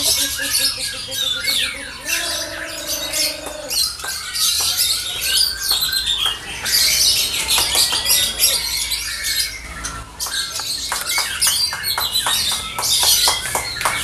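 Many caged lovebirds chattering and trilling at once in a dense, high, unbroken chorus, with runs of rapid ticking notes.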